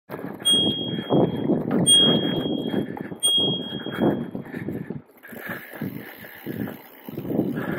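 A bicycle's handlebar bell is rung three times about a second and a half apart as an advance warning, each a clear high ding that rings briefly. Under it is the rolling noise of the bike on a dirt trail.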